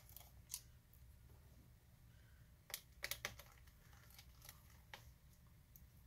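Near silence with a few faint clicks and taps from a small Phillips screwdriver and parts being handled on an opened laptop's chassis, three of them close together about three seconds in, over a low steady hum.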